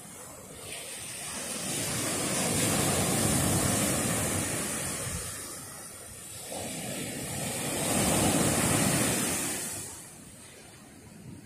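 Ocean surf: waves breaking and washing up the shore in two long surges of rushing noise, each building over a couple of seconds and then fading, the second dying away about ten seconds in.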